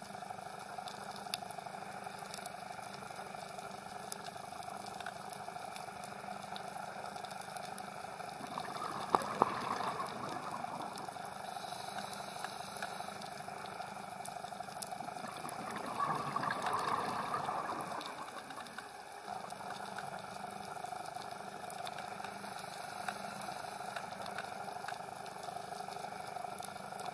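Underwater sound on a coral reef: a steady hiss scattered with faint clicks, and two louder swells of bubbling, about nine seconds in and again around sixteen to eighteen seconds, from a scuba diver's exhaled breath.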